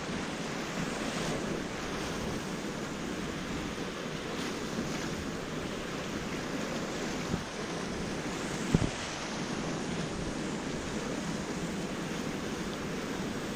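Whitewater rapids rushing steadily around a kayak, with a short thump about seven seconds in and a louder one a moment later.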